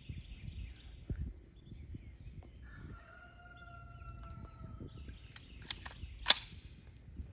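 A rooster crows once, one slightly falling call lasting about a second. About six seconds in comes a single sharp crack, the loudest sound.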